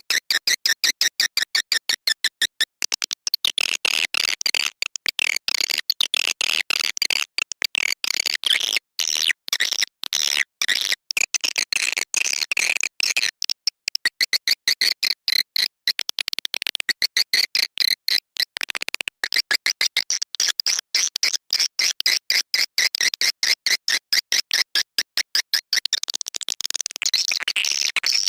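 Swiftlet call lure track: a dense, rapid chatter of high-pitched swiftlet chirps, several short pulses a second, of the kind played to draw swiftlets into a swiftlet house to roost and nest.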